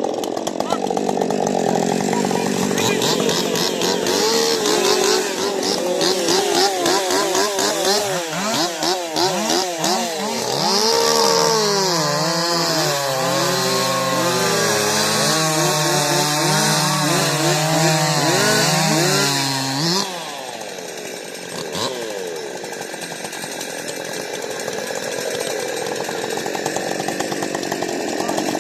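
Husqvarna 550 XP Mark II two-stroke chainsaw cutting wood at full throttle, its pitch dipping and recovering again and again as the chain bites. About twenty seconds in the cut ends and the sound drops suddenly to a quieter running noise.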